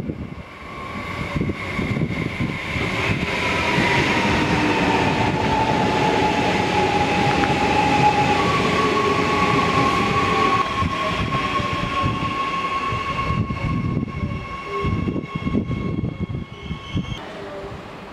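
Adelaide Metro 4000-series electric multiple unit running into the station past the platform: wheels on the rails and a whine from the electric drive that slides down in pitch, then holds steady as the train passes close by. It fades to quieter background near the end.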